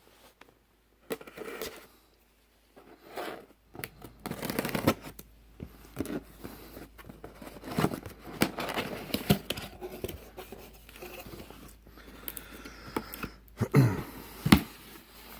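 A cardboard subscription box being opened by hand: tape and cardboard tearing, scraping and rustling, broken by sharp clicks and knocks.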